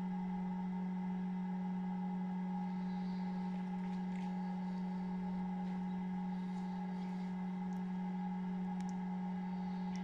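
Steady electric hum of an egg incubator's fan, with a few faint, short high peeps from a newly hatched Chinese painted quail chick.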